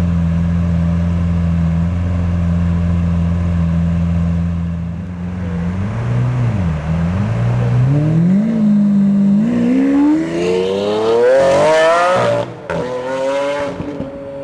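Lamborghini Aventador LP700-4's 6.5-litre V12, fitted with an Innotech aftermarket exhaust, idling steadily, then pulling away. The revs dip and wobble, then climb hard for about four seconds to an upshift near the end, and the engine note carries on lower as the car drives off.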